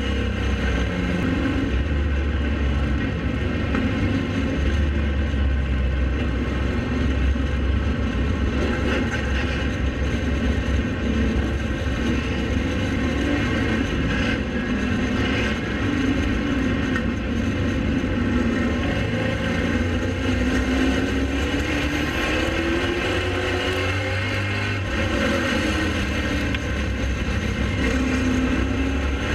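Pro late model race car's V8 engine running hard at racing speed, its pitch sweeping down and back up several times as the car goes through the corners of the track.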